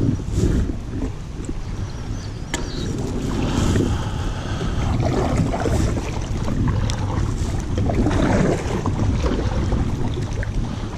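Wind rumbling and buffeting on the microphone of a camera on a kayak, over water moving around the hull, with a few sharp knocks.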